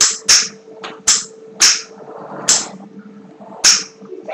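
Six sharp cracks, like slaps or claps, at uneven intervals, with a fainter one among them, over a steady low hum.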